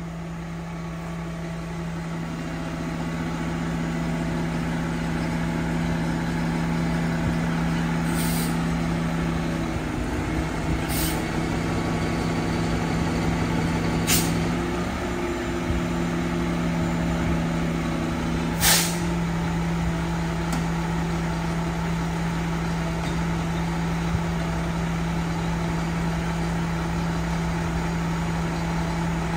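Mack LEU garbage truck with a Leach rear-loader body idling steadily, with a second, higher steady tone joining from about two seconds in and stopping about two-thirds through. Four short air hisses from the truck's air system come at about 8, 11, 14 and 19 seconds, the last the loudest.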